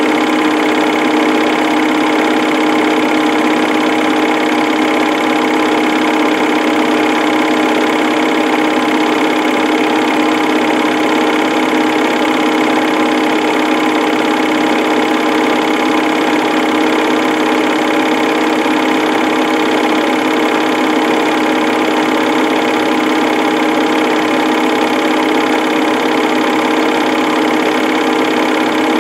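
Home-movie film projector running: a steady mechanical whir with a constant hum of several fixed tones.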